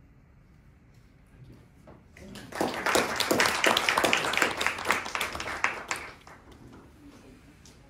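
Audience applauding, starting about two seconds in, lasting about four seconds and then dying away.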